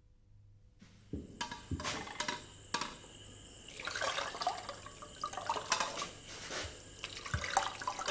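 Water being poured and splashing in irregular spurts, with small knocks and clicks, starting about a second in.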